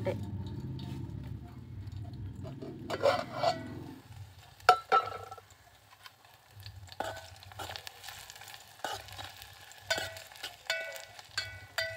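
Metal lid lifted off an aluminium cooking pot with a ringing clatter a few seconds in. Then a steel spoon stirs onion and green chilli frying in the pot, striking the metal with a series of short ringing taps over a faint sizzle.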